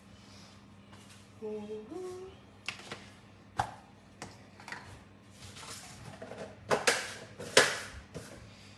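Irregular clicks and knocks of kitchen items being handled and set down, with the two loudest knocks about seven seconds in.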